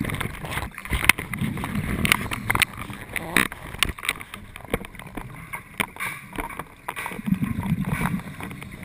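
Scuba diver's exhaled bubbles from the regulator, recorded underwater: a low bubbling swell about two seconds in and another near the end, with scattered clicks and crackles between.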